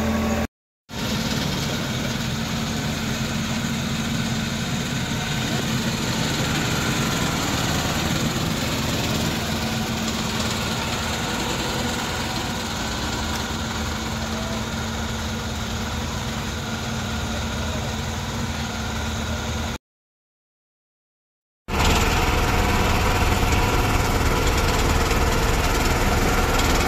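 Diesel engine of heavy road-maintenance machinery, a road grader, running steadily, with two short gaps of silence.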